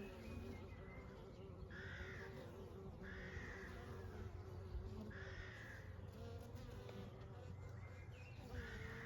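Honey bees buzzing in a steady low hum. Over it a bird gives four short calls that rise and fall in pitch, at about two, three and five seconds in and again near the end.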